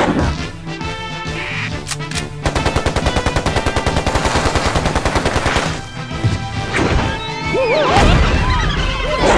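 Cartoon rapid-fire sound effect, like a machine gun, of sharp strokes at about ten a second for about three seconds. Near the end come high, sliding squeaky cartoon-creature cries and a heavy thump.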